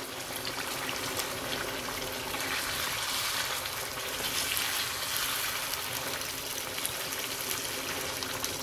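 Chicken karahi curry sizzling and bubbling in a wok over a gas flame as its yogurt gravy cooks down, with a metal ladle stirring through it. The sizzle swells a little in the middle.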